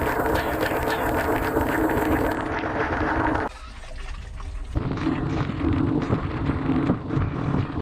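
Water spraying and splashing inside a dishwasher during its wash cycle, heard from within the tub, with a steady hum under it. It drops away about three and a half seconds in, then the spray comes back about a second later.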